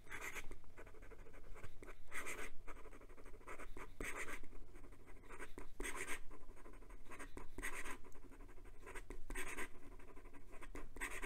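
Fountain pen nib scratching across notebook paper in quick cursive writing, with louder sweeping strokes about every two seconds. The nib keeps up at speed with no issues.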